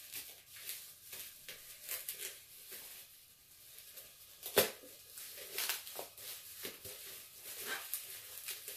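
Paper packaging rustling and crinkling as it is handled and pulled apart to unwrap a boxed vinyl figure, with one sharp, louder crackle about halfway through.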